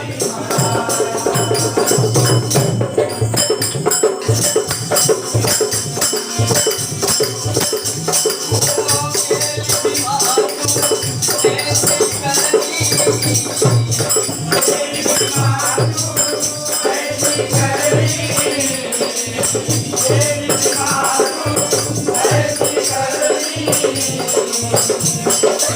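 Live Marathi devotional song (vandan geet) played by a folk shahiri group. Jingling hand percussion keeps a quick, steady beat over a pulsing low drum and a melody.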